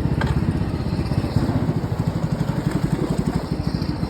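Small river boat's engine running steadily with a fast, even chugging.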